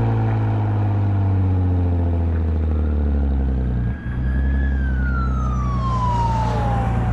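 2010 Lexus IS250's 2.5-litre V6 through a full aftermarket exhaust with valved mufflers, droning steadily while cruising, with a brief drop in the sound about four seconds in. An emergency-vehicle siren wails in the background over it, rising and then falling slowly.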